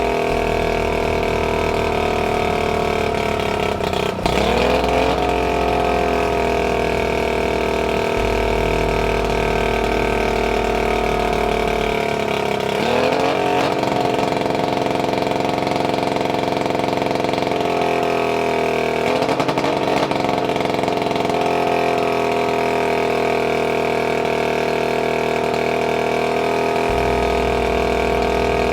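Boat motor running out of the water on a hose-fed flushing muff, mostly steady at low revs, with three brief rises in revs: about four seconds in, around thirteen seconds and near twenty seconds, each settling back.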